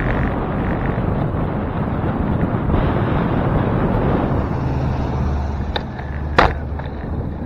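Wind rushing over a handlebar-mounted camera's microphone on a moving bicycle, with road rumble and nearby car engines. A low steady engine hum comes in past the middle, and there is one sharp knock near the end.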